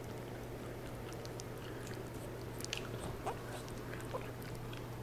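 Faint, scattered wet clicks and smacks of a young puppy licking and mouthing soft, mushy food from a hand, over a steady low hum.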